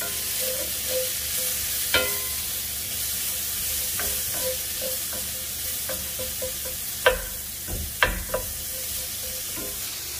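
Sliced onion frying in oil in a cast iron skillet, a steady sizzle, stirred with a wooden spoon. Several sharp knocks, the loudest two near the end.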